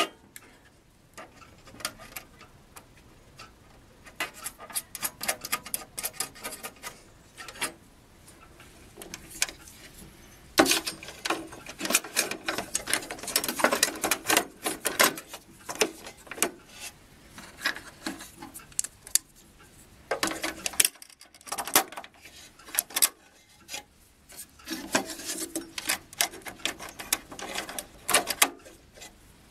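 Small parts being handled and fitted by hand inside a brass model-boat hull: irregular clicks, taps and light scraping of plastic RC servos, their mount and metal fittings, busier in a few spells.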